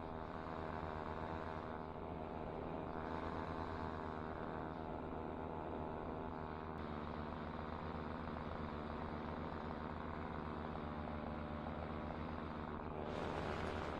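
Air Conception Tornado 280 paramotor's two-stroke engine and propeller running at a steady cruise setting, a constant many-toned drone with an airy hiss over it that swells briefly near the end.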